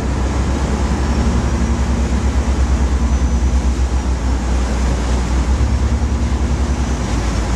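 Pilot boat running under power close alongside a ship's hull: a steady low engine rumble with water rushing past the hull.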